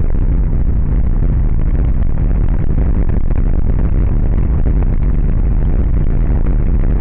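Car driving along a patched asphalt road, heard from inside the cabin: a loud, steady low rumble of engine and tyres.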